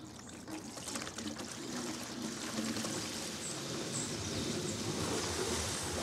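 Water rushing and trickling through a swimming-pool heat pump and its pipework as the 1 hp pool pump's full flow is sent through it with the bypass shut. It grows louder over the first two or three seconds, then holds steady.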